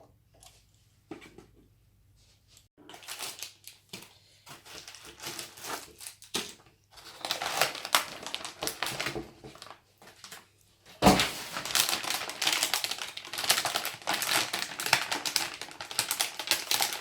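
Computer parts being handled during a PC build: a few scattered clicks, then a busy run of small clicks, rattles and rustles from about three seconds in, with a sharp knock about eleven seconds in.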